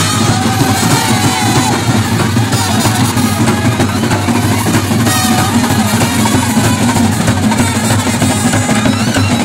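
Brass band playing live in the open: trumpets and a euphonium carry a melody over bass drum and other drums, loud and without a break.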